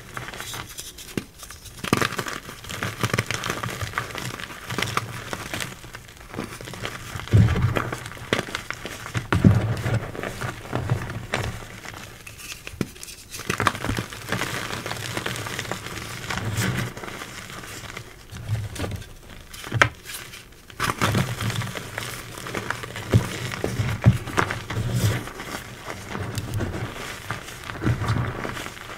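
Reformed gym chalk blocks being crushed and crumbled by hand into loose chalk powder: crunchy, gritty crackling in irregular clusters, with some dull thuds as the hands press into the powder.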